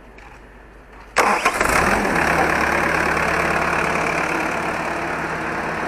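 Bobcat's diesel engine cranking and catching about a second in, then settling into a steady idle.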